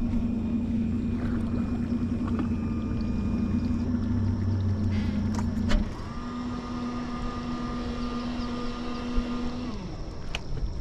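A boat's outboard engine running steadily, then dropping away about six seconds in, followed by a steady electric-motor whine for about four seconds that stops near the end.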